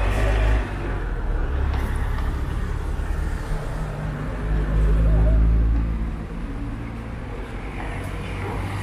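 City street traffic, with a minibus engine passing close by: a low rumble that is loudest about halfway through, then eases off.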